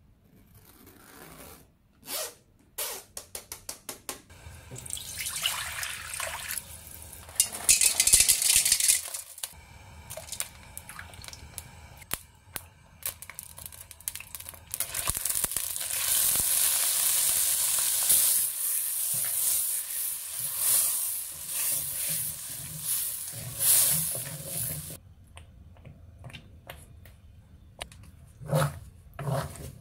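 Spoon scraping steamed chestnut through a metal mesh sieve in short strokes, then a long steady sizzle of oil and sugar heating in a wok, and near the end a spatula stirring thick chestnut paste in the wok.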